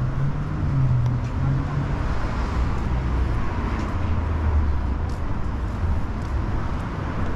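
Steady low rumble of motor vehicle traffic.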